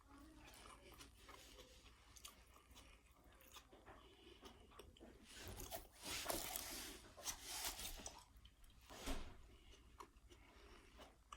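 A person chewing and crunching a mouthful of salad close to the microphone, in scattered bites that are loudest about halfway through and again near the end.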